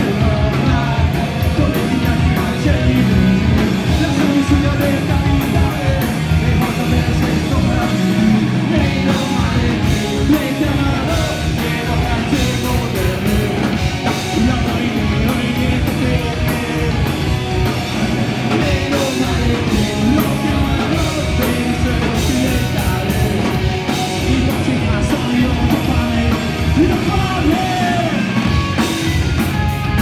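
A punk rock band playing live on electric guitar, bass guitar and drum kit, with the cymbals cutting through steadily.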